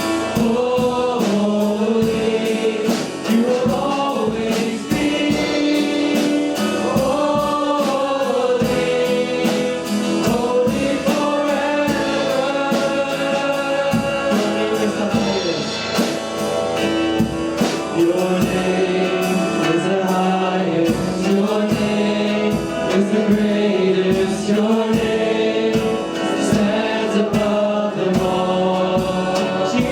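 Worship song with a choir of voices singing a slow melody over band accompaniment with a steady beat.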